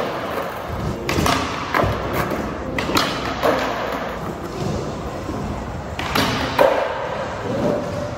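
Skateboard wheels rolling on a smooth park surface, with several sharp board impacts (landings or tail and truck hits) about a second in, near two and three seconds in, and twice around six to seven seconds in.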